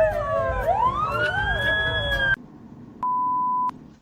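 A siren wails, its pitch falling and then rising and holding, with a second wavering pitched sound over it; it cuts off suddenly about two and a half seconds in. About half a second later a single steady beep sounds for under a second.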